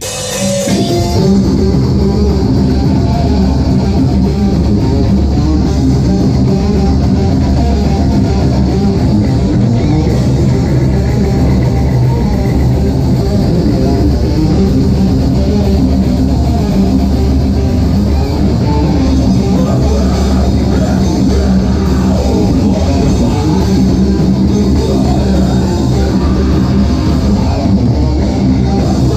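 A live rock band playing loud: electric guitars, bass guitar and drum kit together, the full band coming in within the first second after a brief break.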